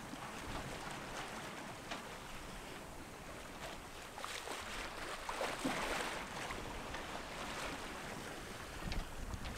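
Sea water swishing and splashing along a sailboat's hull as it sails through choppy open ocean, surging louder about halfway through.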